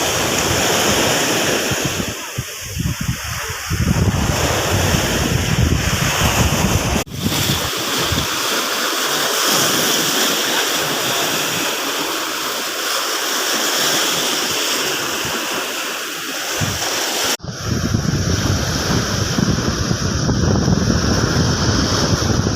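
Surf washing on a beach, with wind buffeting the microphone. The sound changes abruptly twice, about seven seconds in and again near the seventeen-second mark.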